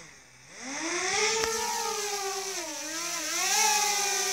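DJI Mavic Air quadcopter's motors and propellers spinning up for takeoff. The whine climbs steeply in pitch about half a second in, dips briefly about three seconds in, then rises again and settles into a steady hovering buzz.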